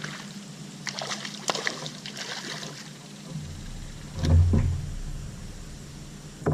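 Sharp clicks and knocks, then low thumps and rumbling from handling against a kayak, loudest about four seconds in.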